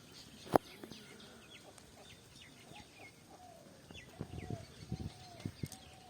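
Birds chirping in many short, quick notes, with longer lower calls in the second half. A single sharp click about half a second in is the loudest sound, and a few soft knocks follow near the end.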